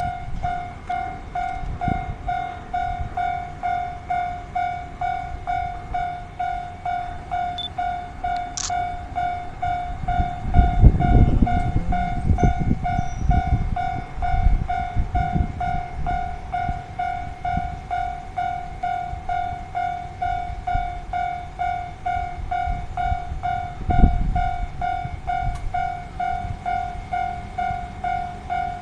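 Japanese level-crossing warning bell ringing, an even electronic ding about twice a second. Under it runs the low rumble of a diesel train, which swells for a few seconds about a third of the way in, with a short loud thump later on.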